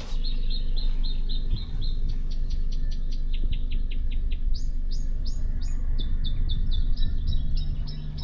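Rapid, evenly repeated high chirps, about four a second, from birds or insects in the bush, rising to higher, longer notes for a couple of seconds midway, over a steady low rumble.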